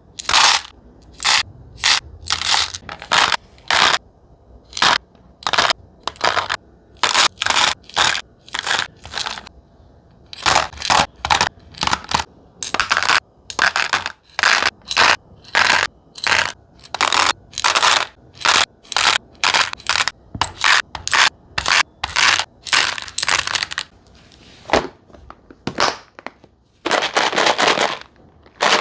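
Candies and snacks being handled and set into the compartments of a plastic snackle box: a quick run of short, separate crackles and clatters, about one to two a second, with a longer one near the end.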